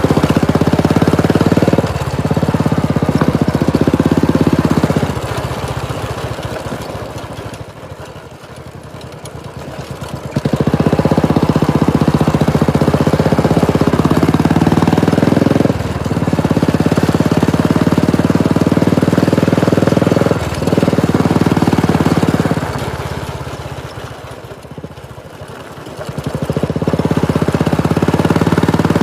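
Royal Enfield Classic 350's single-cylinder engine through a Red Rooster aftermarket silencer, pulling on throttle with a few brief dips. Twice the throttle closes for several seconds and the engine falls away, then it picks up sharply again.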